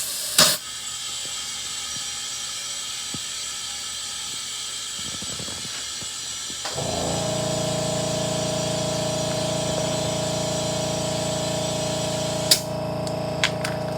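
Air compressor inflating a low car tyre: a click, then a steady hiss, and about halfway through a motor starts and runs steadily with an even hum and whine. A sharp click comes near the end.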